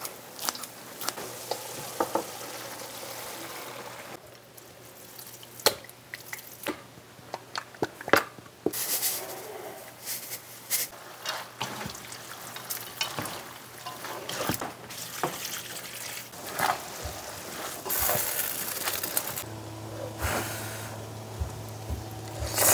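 Wooden spatula stirring and tossing glass noodles in a hot nonstick frying pan, with repeated short scrapes and taps against the pan over a soft sizzle.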